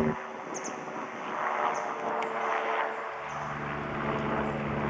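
Helicopter flying overhead: a steady rotor and engine noise, with a low hum coming up stronger about three seconds in as it draws closer.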